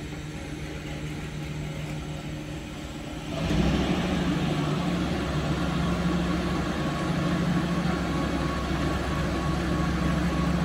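Diesel engine of a Cometto girder transporter running steadily under load while it carries a bridge-girder launcher. A fainter steady hum gives way to the engine, much louder, about three and a half seconds in.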